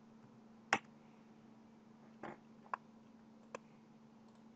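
Four faint, separate computer mouse clicks, irregularly spaced, over a faint steady low hum.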